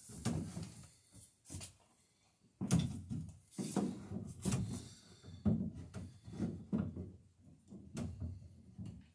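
Irregular dull wooden knocks and thumps, a dozen or so, as the dory's planking and loose wood on the hull are handled and shifted.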